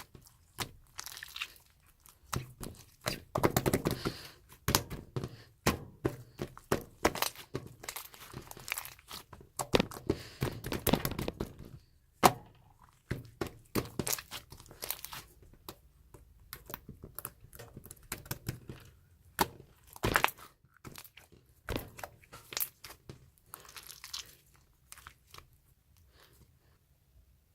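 Hands squeezing, pressing and stretching a tough, chewy-textured slime: irregular sticky clicks, pops and crackles, coming in denser runs now and then.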